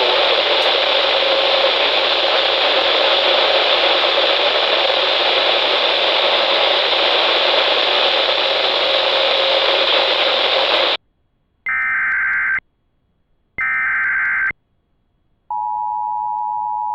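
Weather radio receiver static, a loud steady hiss, cuts off suddenly about eleven seconds in. Two short bursts of Emergency Alert System digital header data follow, each about a second long, and a steady two-tone EAS attention signal begins near the end, marking the start of a new warning.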